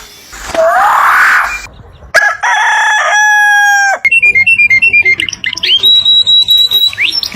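Bird calls in quick succession: a harsh rising call, then one long held crow-like call that drops at its end, then rapid high chirps and a steady high whistle broken by upward glides.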